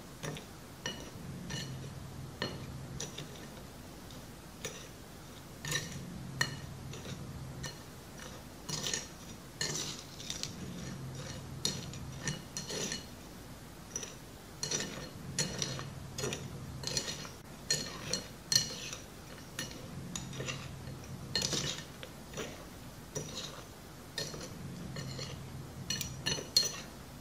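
Metal spoon scraping and clinking against a ceramic plate as it scoops through dry cement powder and small stones, in many irregular short clicks and scrapes.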